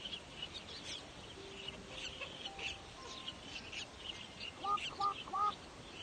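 Nestling birds calling in a nesting colony: a steady stream of short, high chirps, with three louder two-note calls in quick succession a little before the end.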